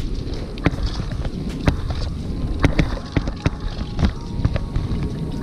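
Irregular clicks and knocks of white plastic net floats and a tangled fishing net being handled on a kayak, over steady wind noise on the microphone and water around the hull.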